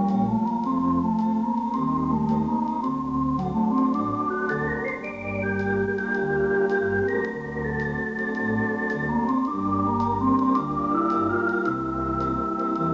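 Background instrumental music: a melody of held notes over a stepping bass line, climbing to its highest notes about five seconds in.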